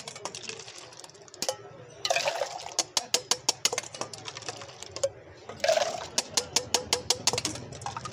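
Gond katira sharbat with ice being mixed by pouring it back and forth between a steel mug and a steel bowl. There are two splashing pours, one about two seconds in and one at about five and a half seconds, each with a quick run of clinks at about four a second.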